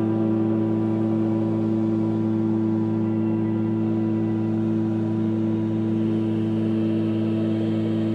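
Ambient electronic music: a steady drone of low held synthesizer tones, with a faint higher tone coming in near the end.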